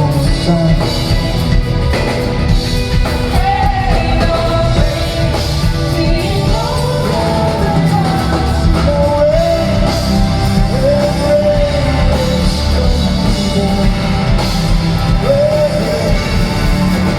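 Live rock band playing in concert, with a steady low drum and bass pulse under a lead melody that slides between notes.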